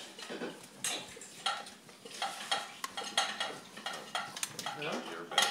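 Plates and cutlery clinking and rattling in irregular short clinks and scrapes, as a dog licks the plates in an open dishwasher rack.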